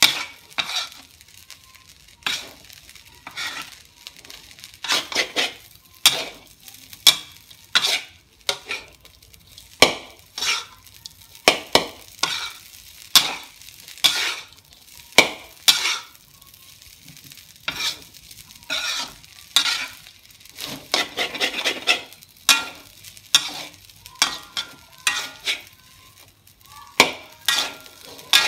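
Metal spatula striking and scraping a steel wok while stir-frying fried rice, in irregular strokes about one to two a second, with the rice sizzling faintly underneath.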